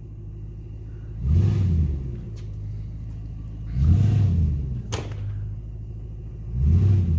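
Vehicle engine pulling on a rope tied to a hung-up tree, revved and let off in three surges about two and a half seconds apart to rock the tree. A single sharp snap about five seconds in.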